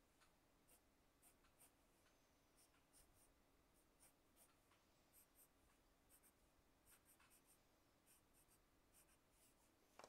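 A wooden pencil sketching on paper: faint, short scratching strokes in irregular runs.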